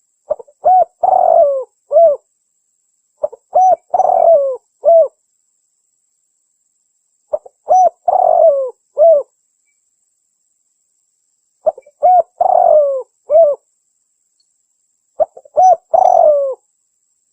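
Spotted dove (tekukur) calling: five repeated phrases, one about every four seconds, each a few short coos around one longer, rougher coo. It is a lure call for drawing doves in.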